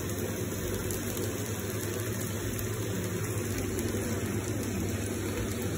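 Food frying in a pan and pasta boiling in a saucepan on a gas hob: a steady hiss with a low hum under it.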